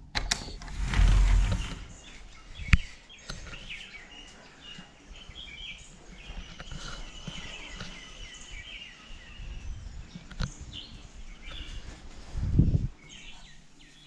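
Small birds chirping and trilling outdoors. A loud low rumble comes about a second in and again near the end, with a few sharp clicks in between.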